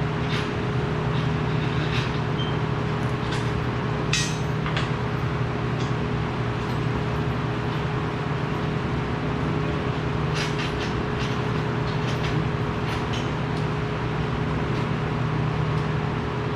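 Steady hum of shop machinery in a welding shop, with a scattered few short metallic clicks and knocks, the loudest about four seconds in and a small cluster later on.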